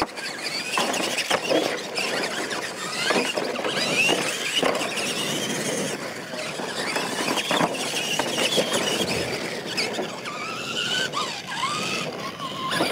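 Electric motors of radio-controlled monster trucks whining at speed, the high whine rising and falling as the drivers work the throttle, with scattered knocks as the trucks hit the dirt and jumps.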